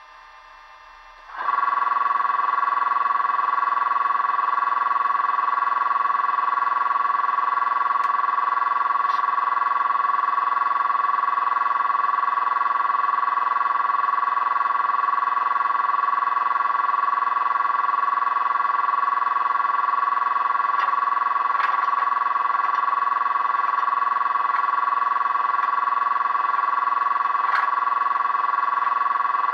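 Bachmann class 85 model locomotive's DCC sound, played through a small speaker from an ESU V4 decoder: a steady, high electric whine that switches on about a second and a half in and holds level, with a few faint clicks.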